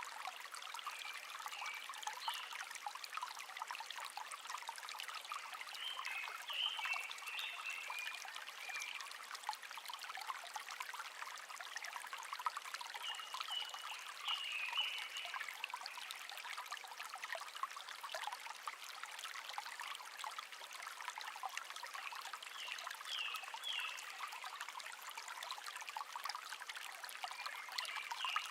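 A small stream babbling and trickling steadily, with a songbird singing short chirping phrases about five times, every few seconds.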